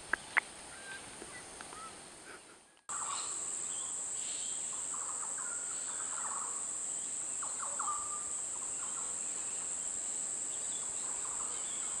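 Outdoor forest ambience: scattered bird calls over a steady high-pitched drone. The drone comes in abruptly about three seconds in and is the loudest sound. A few sharp clicks come before it.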